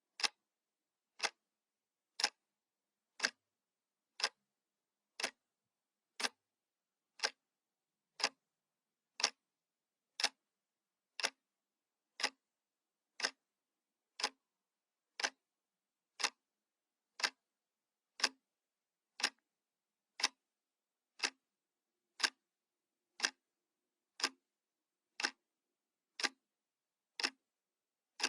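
Analog clock ticking steadily, one sharp tick each second, with silence between the ticks.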